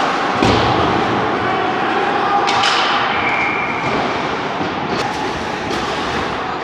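Ice hockey play: skate blades scraping the ice under a steady din, broken by sharp clacks of sticks and puck, the strongest with a thud about half a second in.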